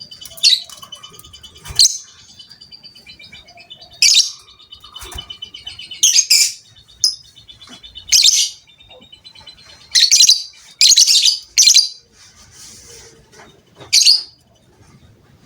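Lovebird chattering: a fast ticking trill with about nine short, shrill calls cutting through it at uneven gaps.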